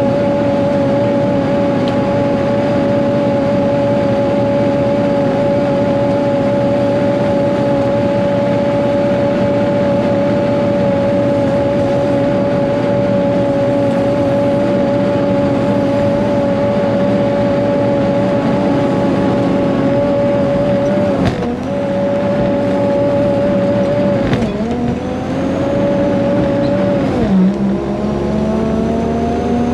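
Caterpillar 140G motor grader's six-cylinder diesel engine running at a steady pitch, then three brief drops in revs late on, each followed by a rising pitch as it shifts up and picks up speed.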